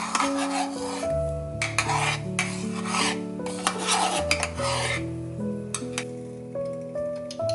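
Gentle background music with sustained notes, over a series of rubbing or scraping strokes, roughly one a second, that die away about halfway through.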